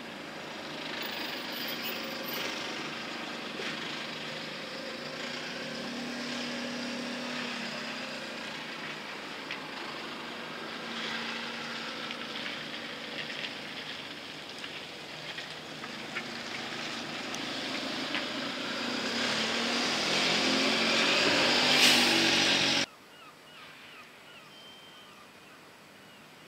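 Outdoor harbour noise: a steady rushing sound with a faint low hum, growing louder toward the end, then cutting off abruptly to a much quieter background.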